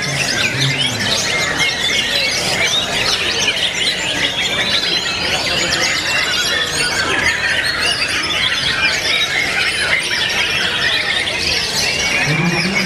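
Many white-rumped shamas singing at once, a dense and unbroken chorus of fast, overlapping whistled and chattering notes.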